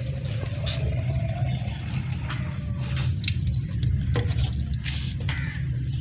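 Water running from the tap of a plastic water drum into a plastic bottle, splashing and gurgling, with a faint note that rises slightly as the bottle fills.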